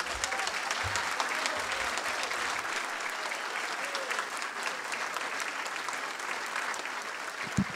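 Audience applauding steadily after a speech: many hands clapping at once.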